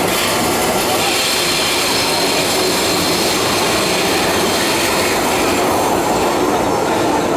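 MTR M-Train electric multiple unit running at speed: a steady rumble of wheels on rail with a thin, steady whine from the traction equipment.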